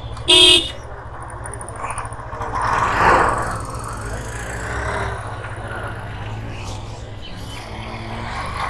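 A vehicle horn toots once, briefly, just after the start, over the steady low rumble of a motorcycle ride. About three seconds in, a louder rushing noise swells and fades.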